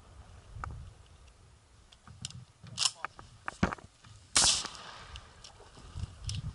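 Shotgun fired at ducks: sharp reports about a second apart, the loudest about four seconds in.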